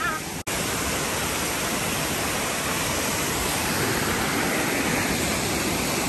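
Steady rush of water pouring over a rocky cascade below a small waterfall. It drops out for an instant about half a second in.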